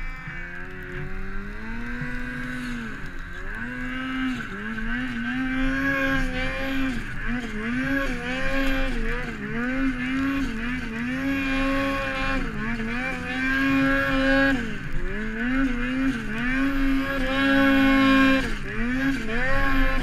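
Ski-Doo 850 turbocharged two-stroke snowmobile engine working hard under load in deep, heavy snow. Its revs climb and dip every second or two as the throttle is worked.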